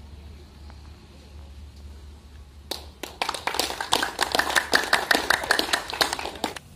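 A small group of people clapping their hands, starting about three seconds in and stopping just before the end.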